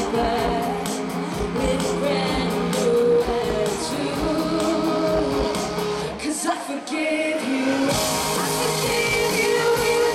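Live pop-rock band performance: a woman singing lead over electric guitar and drums. About six seconds in, the drums and bass drop out for a couple of seconds, then the full band comes back in.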